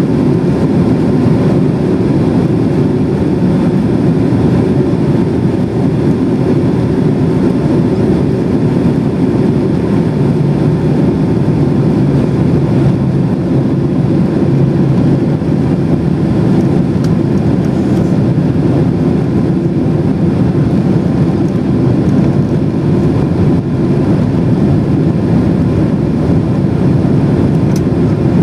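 Steady cabin noise inside a Boeing 767-300 airliner in flight with its flaps extended: a low, even roar of engines and air rushing past the fuselage, with a faint steady tone above it.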